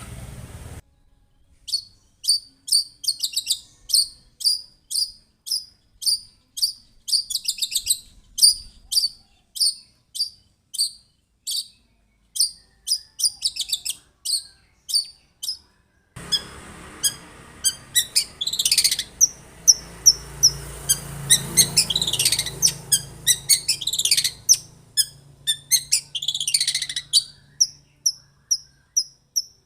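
Long-tailed shrike (cendet) singing: a long run of short, high, sharp notes repeated about twice a second. About halfway through, a hiss and a low hum come in, and loud, harsh calls sweeping downward in pitch break in several times before the short repeated notes resume near the end.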